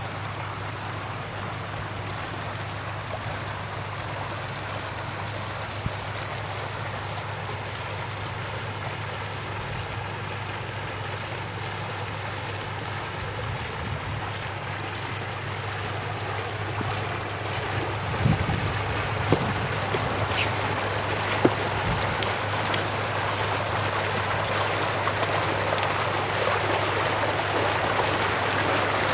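Low bubbler jets in a shallow ornamental fountain pool, a steady splashing rush of water that grows louder in the second half. A few short low bumps come in the second half.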